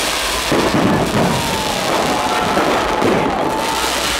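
Aerial fireworks going off in a dense, continuous barrage, with a thin high whistle held for about two seconds in the middle.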